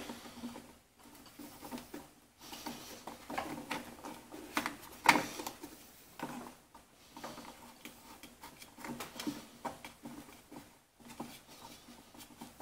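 Hands fitting the plastic air filter housing and its screws onto the carburetor of an Echo PB-500T backpack blower: scattered light clicks, taps and plastic rattles, with a sharper knock about five seconds in.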